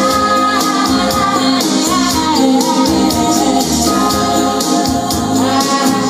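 Recorded music with a singing voice over fast, steady percussion ticks, played back through a pair of home-built three-way loudspeakers.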